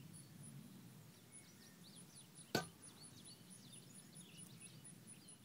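Quiet pond-side ambience with faint bird chirps, broken by a single sharp click about two and a half seconds in.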